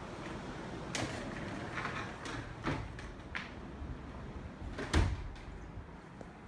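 Knocks and clicks of a door being handled, with a heavier thump about five seconds in. Faint surf noise fades away as the door shuts it out.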